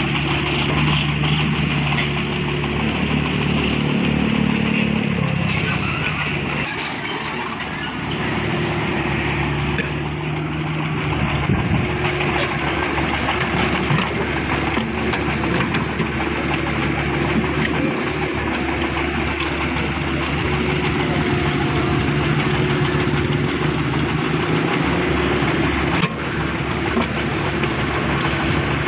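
An engine running steadily, its pitch dropping once about five seconds in, then holding steady.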